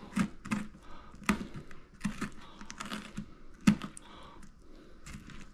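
Irregular sharp clicks and taps of a knife working along a longnose gar's hard scales on a wooden cutting board, the loudest a little past halfway.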